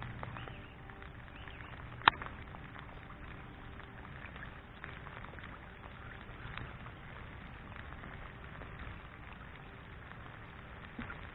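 Rain pattering steadily, a scatter of small drop ticks over an even hiss, with one sharp click about two seconds in.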